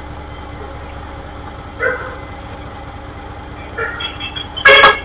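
A dog barking: once about two seconds in, then a quick run of barks near the end, the last the loudest. Under it runs the steady low hum of an idling garbage truck engine, heard through a security camera's microphone.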